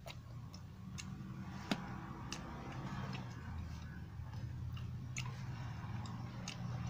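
Eating by hand from steel plates and bowls: scattered soft clicks and taps at irregular intervals, the sharpest a little under two seconds in, over a steady low hum.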